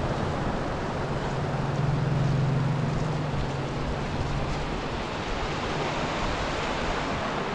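Motorcycle engine running at a steady speed while riding, under a thick haze of wind and road noise. The engine note swells briefly about two seconds in, then settles back.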